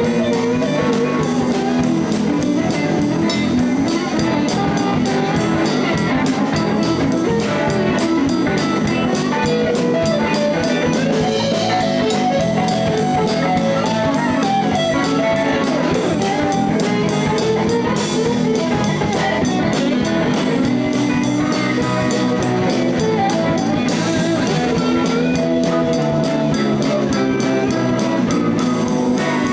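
Live blues band playing an instrumental passage: electric guitar over a steady drum kit and bass groove.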